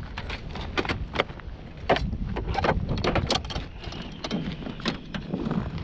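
Wind rumbling on the microphone, with a string of irregular sharp clicks and crunches from boots and gear on the chipped ice around an ice-fishing hole.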